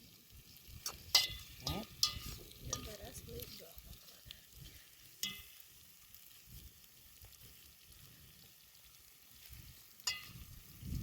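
Cooking on a fire: a faint sizzle of food frying, with several sharp clinks and knocks of a utensil against the pan, some ringing briefly.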